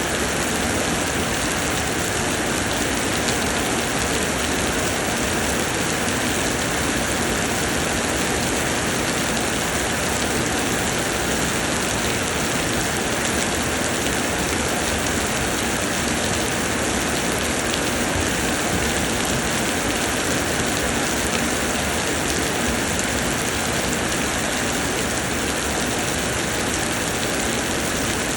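Summer rain pouring down steadily: a dense, even hiss of falling drops that does not let up.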